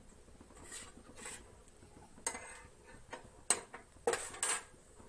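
Mustard seeds and cumin spluttering in hot oil in a small tempering (tadka) pan: a scattered handful of sharp pops and crackles, some with a short hiss.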